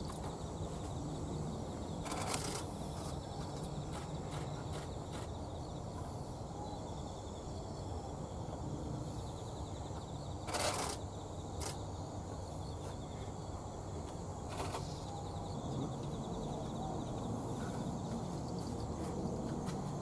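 Common kingfisher giving a few short, sharp threat calls in a territorial dispute with another kingfisher, the loudest about halfway through, over steady low background noise.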